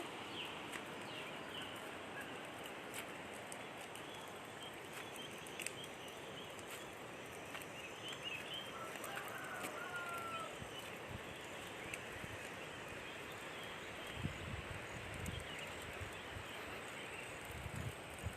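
Faint village yard ambience of small birds chirping and chickens calling, with one longer chicken call about halfway through. A few low thumps come near the end.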